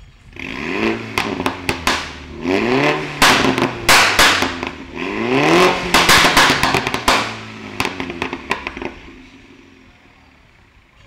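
Mini Cooper S F56's turbocharged B48 2.0-litre four-cylinder is blipped three times through an Armytrix valved turbo-back exhaust with a decat downpipe. Each rev rises quickly and then falls into a rapid string of pops and crackles on the overrun. The popping fades out about nine seconds in.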